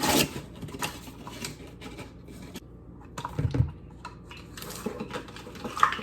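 Kitchen handling sounds while measuring sugar into a mixing bowl: measuring cups and utensils clicking and knocking irregularly, with one heavier knock about three and a half seconds in.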